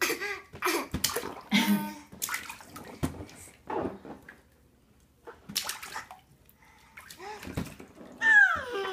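Bathwater splashing and sloshing in short, irregular bursts as a baby slaps and stirs the water in a small inflatable baby bath. Near the end comes a high, falling baby's squeal.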